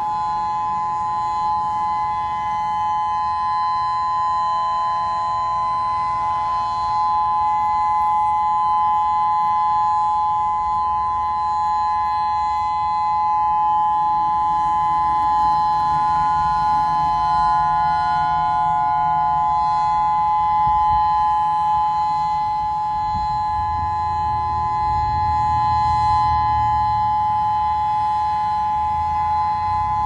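Federal Signal Modulator electronic outdoor warning siren sounding its Alert signal: a loud, unwavering steady tone made of two close pitches sounding together, with no rise or fall.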